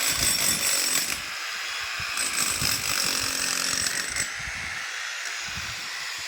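A power tool running steadily with a hissy, high whine.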